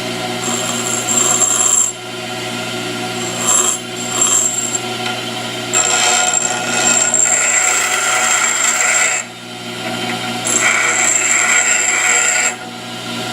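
Pedestal grinder running steadily while a high-speed steel lathe tool bit is pressed against the wheel four times to touch up its grind. Each contact adds a high grinding hiss; the first two are brief, the last two last a few seconds each.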